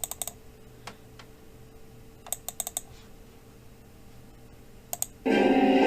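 Computer keyboard keys tapped in short quick bursts, with a few single clicks between. About five seconds in, music starts playing back, steady and much louder.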